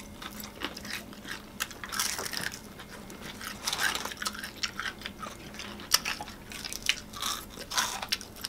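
Crunching and chewing as crispy fried chicken breading is bitten and eaten, in irregular sharp crackles and clicks with softer wet chewing between them.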